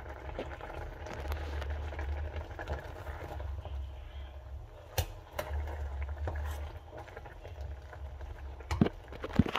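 A plastic spoon turning soft boiled greens in an aluminium saucepan: soft scraping and stirring, with a few sharp knocks of the spoon on the pot, the loudest two close together near the end.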